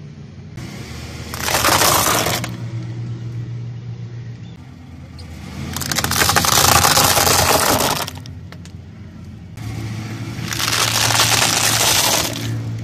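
A car tyre rolling over brittle objects and crushing them: three bouts of loud crackling and crunching, each one to two seconds long, over the low steady hum of the car's engine.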